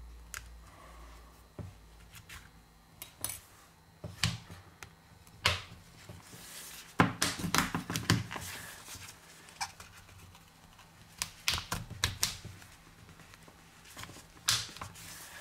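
Light clicks and taps of a smartphone and its small metal SIM tray being handled on a work table, sparse at first and coming in quick clusters in the second half.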